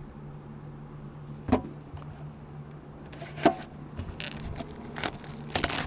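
Trading-card tin and its packaging being handled and opened: two sharp knocks about two seconds apart, then crinkly rustling and clicks as the contents are pulled out, over a steady low hum.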